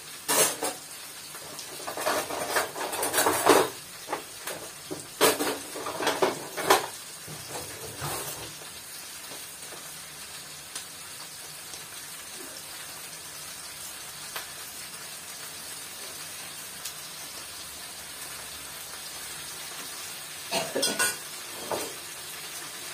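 Eggplant, zucchini and peppers frying in oil in a pan, a steady sizzle. Clinking and clattering of utensils and dishes over the first eight seconds or so, and again briefly near the end.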